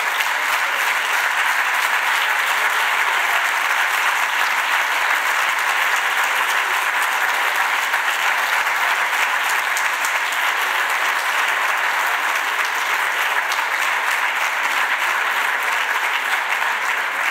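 Sustained applause from the senators in a parliamentary chamber, greeting the end of a speech. It holds at a steady level throughout.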